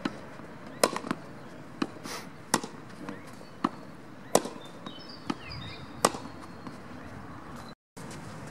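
Tennis ball struck back and forth with rackets in a quick volley rally at the net: a sharp pop of ball on strings about every second. The sound cuts out briefly near the end.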